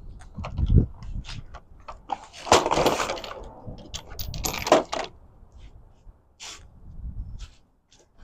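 Metal hand tools clinking and clattering as they are handled, with two louder rattling scrapes about two and a half and four and a half seconds in, as a big socket is sought out for the flywheel bolts.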